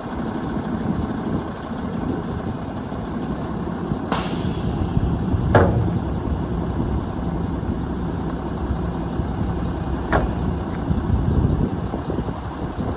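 Mack LE garbage truck's diesel engine running steadily, with a short burst of air hiss about four seconds in and a couple of sharp knocks, one soon after the hiss and one about ten seconds in.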